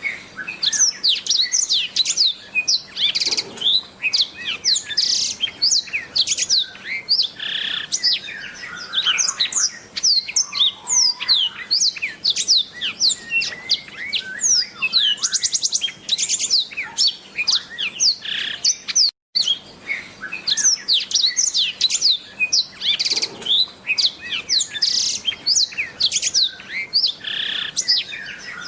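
Black-throated canary (blackthroat) singing a long, rapid, varied twittering song of quick sweeping high notes. The song cuts out for a moment about two-thirds of the way through.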